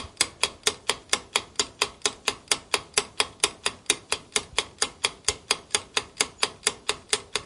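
Countdown timer sound effect: steady clock-like ticking, about four to five sharp ticks a second.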